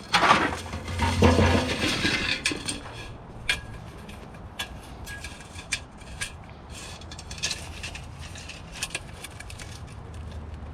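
Scrap items being handled and moved: a loud rattling clatter over the first two seconds or so, then scattered light knocks and clicks.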